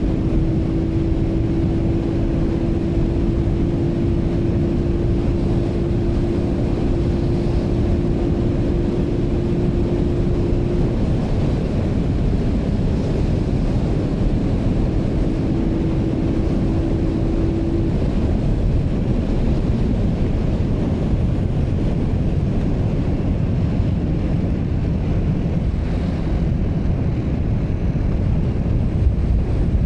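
Heavy wind buffeting a clip-on wireless mic on a motorcycle rider riding at about 70–80 km/h, mixed with the motorcycle's engine running. A steady hum runs through roughly the first ten seconds, drops away, and comes back briefly a little later.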